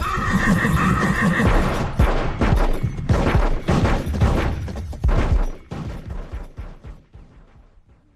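Staged battle sound effects: a horse whinnying, then a run of sharp gunshots as covering fire. It fades away to near silence about seven seconds in.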